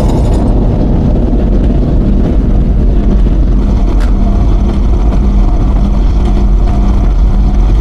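Heavy, steady engine-like rumble of a giant robot coming to life, with a low hum that pulses about twice a second.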